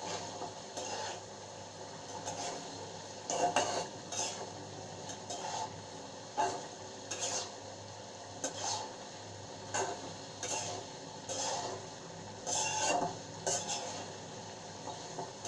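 Spatula stirring and scraping through okra and vegetables in an aluminium karahi, in irregular strokes about once a second over a faint steady hiss, mixing in the just-added mustard paste.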